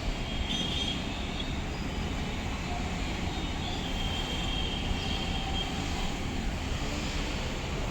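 Steady road traffic noise: a continuous low rumble of vehicles under an even hiss, with faint thin tones now and then above it.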